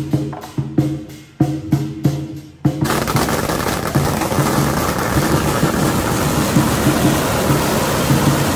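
Procession music with regular drum beats, then about three seconds in a long string of firecrackers goes off, a dense, steady crackle that covers the music, whose beat still pulses underneath.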